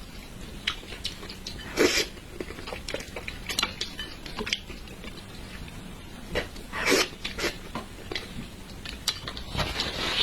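Close-miked eating of red-braised carp: chopsticks and utensils clicking against a dish, with chewing throughout and a few louder, longer wet noises.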